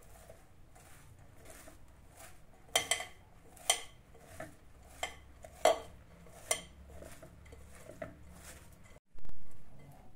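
Hands tossing and squeezing chopped cabbage with spices in a glass mixing bowl: a soft rustle of the shreds, broken by sharp clinks against the glass about once a second in the middle of the stretch.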